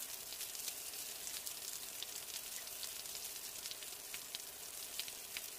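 Rain: a steady hiss of falling drops with many small crisp ticks.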